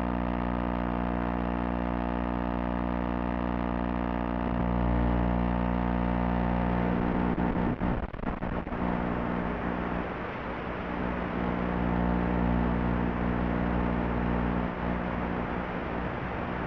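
Electric motor and propeller of a small FPV racing wing droning steadily in flight, heard through the onboard audio. The sound strengthens about four seconds in, breaks up briefly around eight seconds in, then becomes hissier.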